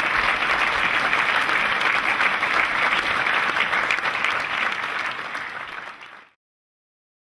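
Large audience applauding steadily, a dense crackle of many hands clapping, fading out about five seconds in and ending in silence a second later.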